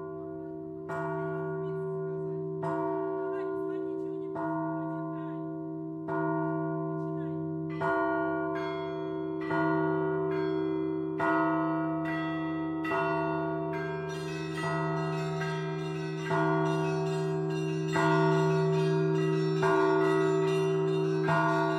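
Russian Orthodox church bells being rung. Evenly spaced strokes come about every second and a half to two seconds and grow louder, each ringing on over a steady low hum from the larger bells. From about two-thirds of the way through, smaller, higher bells chime in between the strokes.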